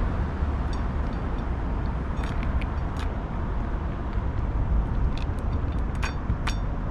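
A cat crunching dry kibble from a metal dish: short, sharp crunches and clicks come every so often, clustered near the middle and end, over a steady low rumble.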